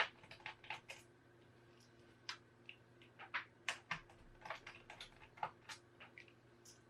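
Scattered small clicks and taps of a screwdriver undoing two small screws on a laptop's hinge, with a faint steady hum underneath.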